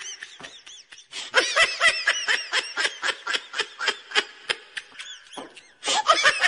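Rubber chicken squeeze toys squeezed over and over, giving rapid, high-pitched squeaks several times a second, with a short break near the end.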